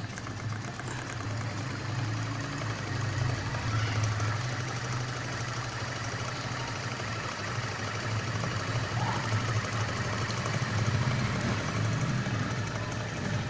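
Charcoal-fired hot-air (Stirling) engine running steadily, its pistons, crank linkages and flywheel making a rapid, even clatter over a constant low hum.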